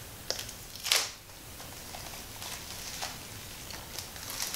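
Plastic shrink wrap being picked at and torn off a Blu-ray case: a sharp crackling tear about a second in, then scattered light crinkles and clicks of plastic handling.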